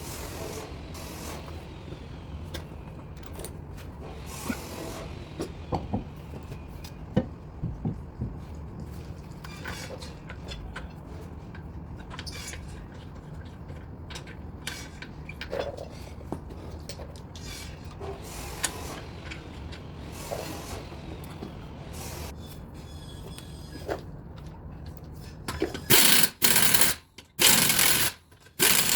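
Scattered light knocks and clinks of a road wheel being handled and fitted over a steady low background hum. Near the end come several short, loud rattling bursts of an impact wrench spinning the wheel bolts in.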